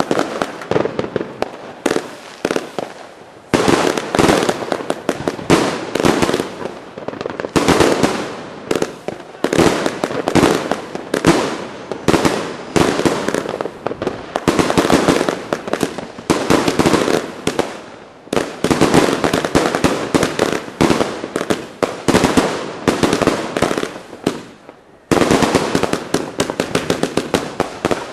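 Chain-fused Camuro Queen firework cakes firing rapid volleys of shots that break into crackling star bursts. The firing pauses briefly a few times, at about 2, 3.5, 8, 18 and 25 seconds, as one cake fuses into the next, and each new run starts with a sudden jump in loudness.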